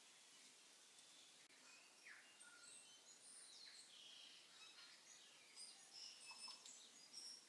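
Faint sizzling of browned onions in hot oil in an Instant Pot's stainless steel inner pot: scattered tiny pops and thin chirps, coming more often and a little louder in the second half.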